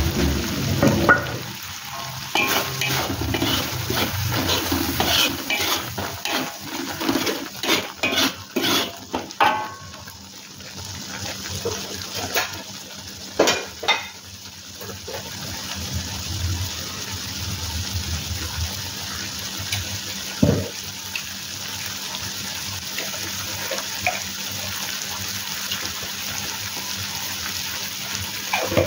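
Metal spatula scraping and clinking against a wok while sambal chilli paste fries with a steady sizzle. The stirring clatter is busiest in the first half and dies down about halfway through, leaving mostly the sizzle with one more knock later on.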